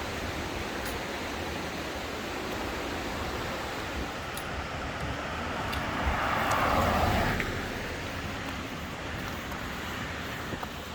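Steady rushing outdoor noise with no clear tone, swelling louder for about a second and a half a little past the middle before settling back, with a few faint clicks.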